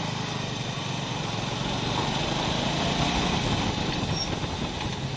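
Motorcycle engine running while riding, with wind and road noise; it grows louder toward the middle, then eases off.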